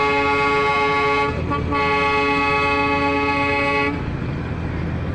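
Steam whistle of the Darjeeling Himalayan Railway toy train's coal-fired locomotive, sounded in two long blasts on one steady pitch: the first ends about a second in, and the second stops about four seconds in. A steady low rumble runs underneath.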